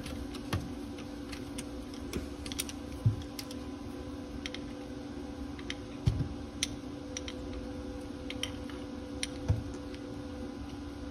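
Scattered light metal clicks and a few dull knocks from a socket on a long extension bar being turned by hand, spinning out a loosened alternator mounting bolt. A steady hum runs underneath.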